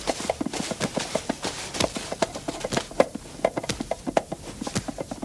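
Rapid, irregular clattering clicks, several a second: teeth chattering from a character shivering with cold.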